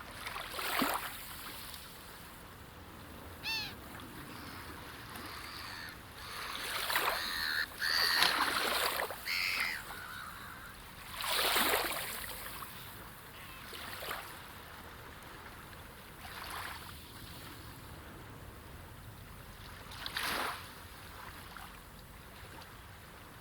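Beach ambience: small waves washing in and drawing back as swelling rushes every few seconds, over a steady hiss of surf. A short bird call sounds about three and a half seconds in, and more calls come in among the loudest waves around eight to ten seconds in.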